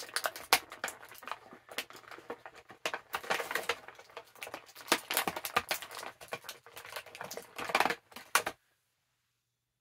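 Action-figure packaging being handled and opened by hand: a dense run of plastic clicks, crinkles and rustles that cuts off abruptly about eight and a half seconds in.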